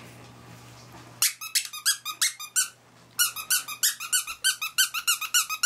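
Squeaky dog toy squeaked over and over in quick, even squeaks, starting about a second in. After a short pause it settles into a steady run of about six squeaks a second.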